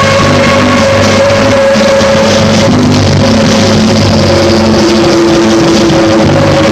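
Loud, dense electric guitar music: a high droning note held throughout over shifting low notes, with a second held note coming in about four seconds in.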